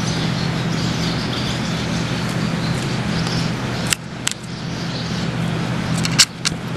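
Handling noise from a camera and its strap as a kitten paws and bites at the strap: a steady hiss and low hum with a few sharp clicks and knocks, the loudest a little after six seconds.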